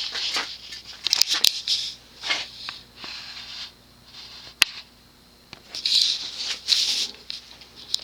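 Handling noise: irregular bursts of rustling with a few sharp clicks, one louder click a little past the middle.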